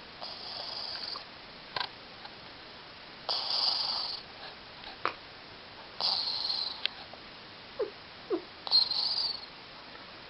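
A sleeping cat snoring: four snores, about one every two and a half to three seconds, with short squeaky whistles between them.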